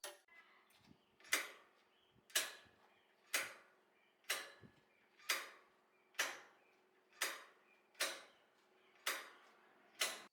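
Hammer striking metal in steady, evenly spaced blows about once a second, each a sharp hit with a short ring.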